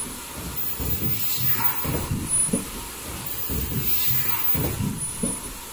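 Automatic foldable mask production line running, its mechanisms clattering in a repeating cycle that swells about every three seconds.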